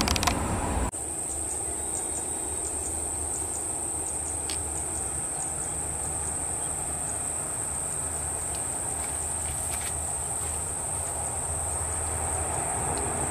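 Distant steady drone of a Lockheed C-130 Hercules's four turboprop engines as it taxis, growing slightly louder near the end, with a steady high-pitched whine throughout. The first second is the tail of an Airbus A320's takeoff noise, which cuts off abruptly.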